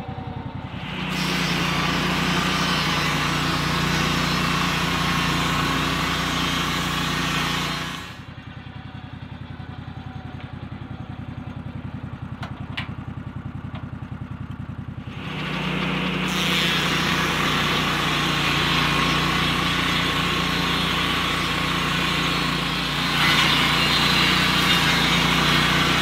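Lucas Mill portable sawmill's engine running steadily while its circular blade cuts through a log, a loud rasping hiss for about seven seconds. The cutting stops, leaving the engine running alone for about seven seconds, then the blade bites in again and cuts, loudest near the end.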